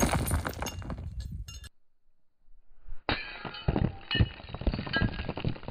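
Sledgehammer smashing a rock on a wooden stump, followed by a clatter of breaking pieces. After a short silent gap about two seconds in, a run of further hammer impacts with clinking fragments.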